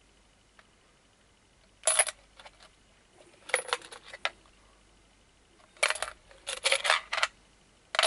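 Loose coins clinking and rattling together as they are handled, in three short bursts: a brief one about two seconds in, another about a second and a half later, and a longer one near the end.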